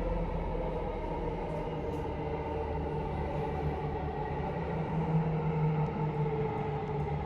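Copenhagen Metro train running, a steady rumble with a held motor hum.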